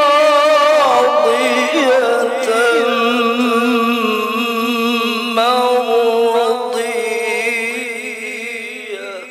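A male Qur'an reciter (qari) chanting in the melodic tilawah style, holding one long, ornamented note on a single vowel with vibrato. The pitch shifts a few times, and the note fades away near the end.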